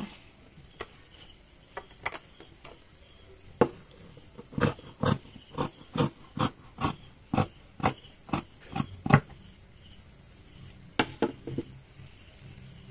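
Scissors snipping through stretch knit fabric along a curved neckline: a run of sharp cuts, about two a second, then three more near the end.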